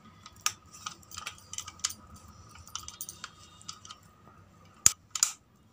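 Metal hand beater whisking cream in a stainless steel bowl: faint, irregular ticks and clicks of the whisk against the bowl, with a sharper click about five seconds in.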